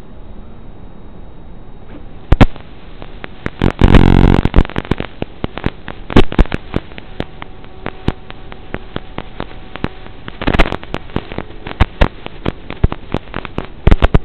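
Crackling audio from an FPV quadcopter's recording: irregular sharp pops and clicks over a steady hiss, with a loud half-second buzz about four seconds in and thicker clusters of crackle near eleven seconds and at the end.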